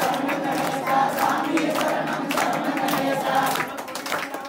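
A group of men and children singing a devotional song together in chorus, with hand claps keeping time.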